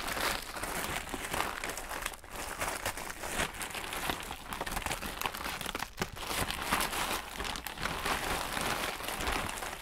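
Packaging crinkling and rustling continuously as an unboxing haul is rummaged through, full of short crackles, with brief lulls about two and six seconds in.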